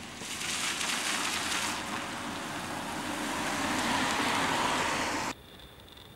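A car driving along the road: a steady rush of tyre and engine noise that swells toward the end and cuts off suddenly about five seconds in.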